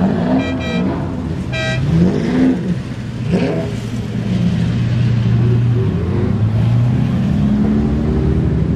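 Several Lamborghini supercars crawling past in a slow queue, their engines idling with short throttle blips that rise and fall in pitch. Two brief high-pitched toots sound about a second apart near the start.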